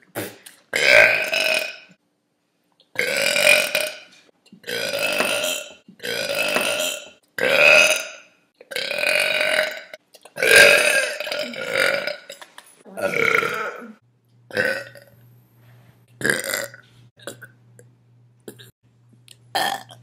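Young women belching one after another: about nine long belches of roughly a second each, then a few short, fainter ones.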